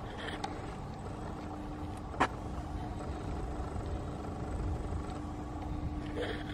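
Steady low outdoor background rumble with a faint continuous hum, and one sharp click about two seconds in.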